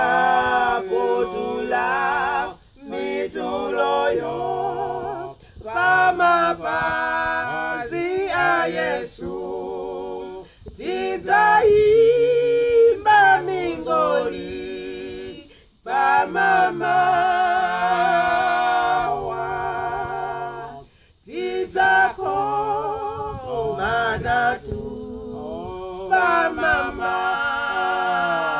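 A trio of a man and two women singing a gospel song a cappella in harmony, in sung phrases with short breaks for breath every few seconds.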